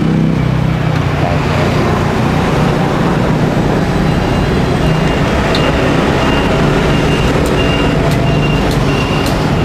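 Busy street traffic with motor vehicle engines running close by. About four seconds in, a short high electronic beep starts repeating about twice a second, like a reversing alarm.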